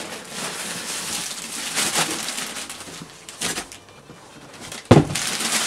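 Corrugated cardboard shipping box rustling and scraping as the box is handled and the foam-packed cassette deck is taken out of it, with one heavy thud about five seconds in, the loudest sound.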